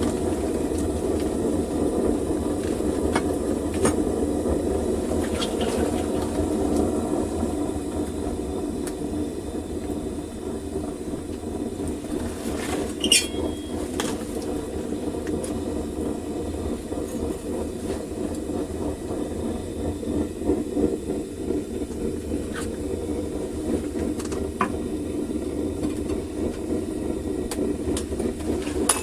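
Home-made propane furnace's burner running steadily, with a low rumble under it. A few sharp clicks are scattered through, and a brief squeal comes about 13 seconds in.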